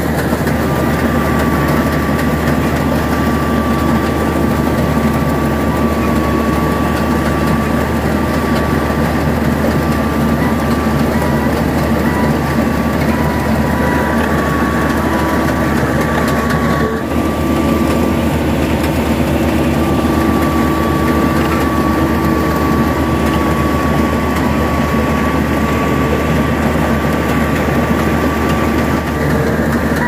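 Rice combine harvester running steadily: a constant engine drone with a steady high whine over it, with a momentary break just past halfway.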